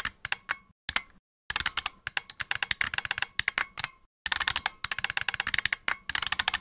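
Fast typing on a computer keyboard, key clicks in quick runs that stop briefly about a second in and again at about four seconds.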